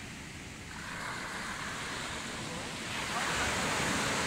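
Small waves breaking and washing up the sand, a steady surf noise that swells louder about three seconds in.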